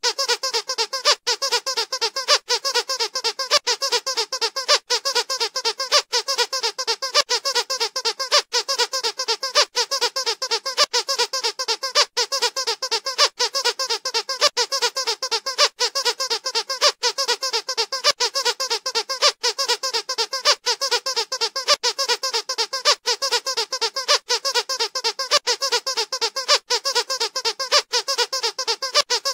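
Squeaky dog toy squeezed over and over, a rapid, continuous string of squeaks broken by a short gap about every second.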